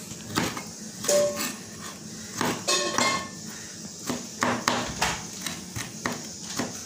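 Kitchen knife chopping on a plastic cutting board: quick, irregular knocks of the blade striking the board.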